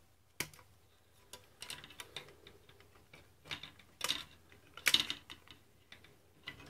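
Hobby sprue clippers snipping a plastic kit panel free from its sprue, with the plastic frame handled between cuts: a series of sharp clicks and snaps, a quick run of them about two seconds in and the loudest about five seconds in.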